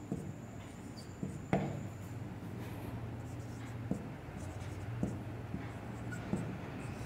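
Marker pen writing on a whiteboard: scratchy strokes with a few short taps as the tip meets the board, over a steady low hum.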